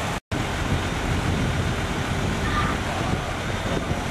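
Fire apparatus diesel engine running steadily, a dense rumble with traffic-like noise; the sound cuts out for a split second near the start.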